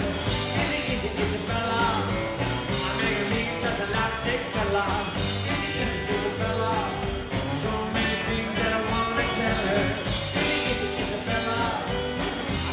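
Live rockabilly band playing: a man singing lead over strummed acoustic guitar, upright double bass and drums.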